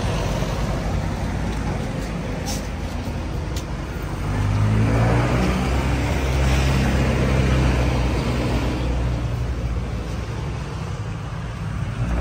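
Motor vehicle engine hum on a street, swelling louder from about four seconds in and easing off again after about nine seconds. Two sharp clicks come a second apart near the three-second mark.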